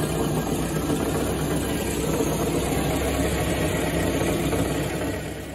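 A car's engine running steadily, heard from under the car, whose drive axle is broken. The sound fades near the end.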